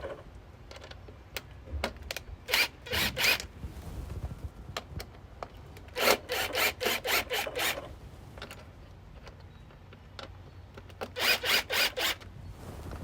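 A bike U-lock's frame mount being fitted by hand: three groups of quick, short rasping strokes, a few at first, then about half a dozen, then four more near the end.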